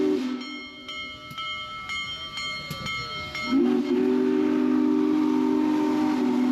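Union Pacific Big Boy 4014's steam whistle gives a brief blast, then a long steady one about three and a half seconds in: a low chord of several notes sounding together. Between the blasts the passing cars give a high steady metallic squeal with light clicks of wheels on rail.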